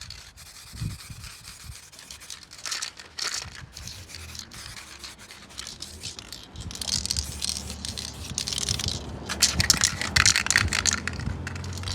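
Aerosol spray paint can hissing in several bursts as satin black paint is sprayed on. A low wind rumble on the microphone builds from about halfway.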